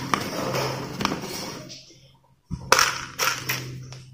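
Dry cat food kibble tipped from a spoon into a small plastic tub, the pellets rattling and clattering against the plastic, in two bouts with a short silent break halfway.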